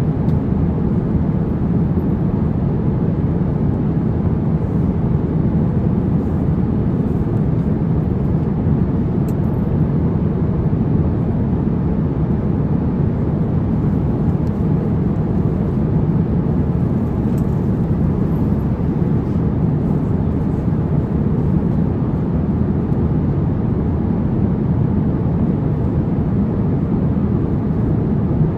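Steady low rushing cabin noise inside an Airbus A350-900 airliner, the even drone of engines and airflow, with no change in level.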